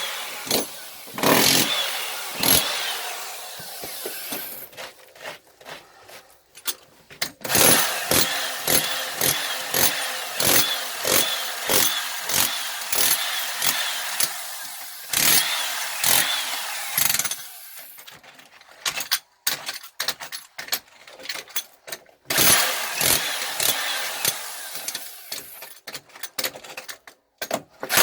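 Breaking-out work to reach a leaking water pipe: runs of sharp strikes about two a second, alternating with stretches of a power tool running.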